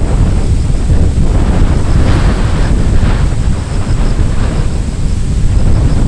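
Strong gusty wind buffeting the microphone: a loud, low rumbling roar that swells and eases with the gusts.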